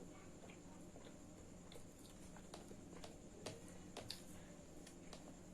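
Faint eating sounds: scattered soft clicks and ticks, a few sharper ones around the middle, over a quiet steady hum.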